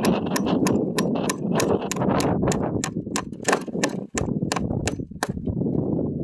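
Hammer striking fence staples into a wooden fence post to fasten woven wire fencing: quick, even taps about four a second, with a short break about four seconds in, ending about a second before the close.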